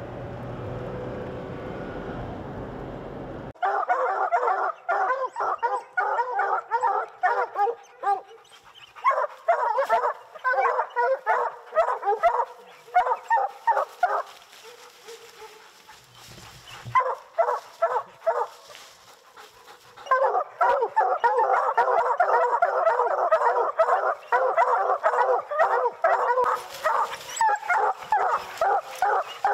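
Pack of bear hounds barking up a tree at a treed bear: several dogs giving a rapid, overlapping chop of barks, which thins out for a few seconds midway and then comes back thick and steady. It begins about three and a half seconds in, after a low steady road hum inside a Toyota pickup's cab.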